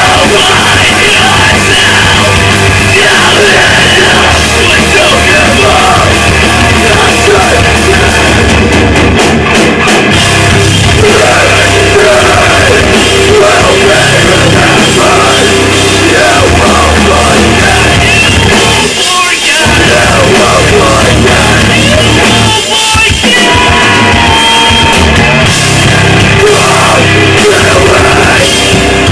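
Post-hardcore band playing live: guitars, bass and a drum kit with yelled vocals, very loud. The music cuts out briefly twice, about two-thirds of the way through.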